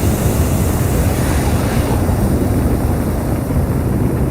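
Sound-designed steady rumbling roar with a rushing hiss on top, standing for the Perseverance rover's descent through the Martian atmosphere.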